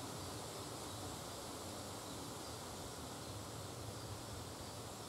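Quiet, steady background hiss with a faint low hum; no distinct sound stands out.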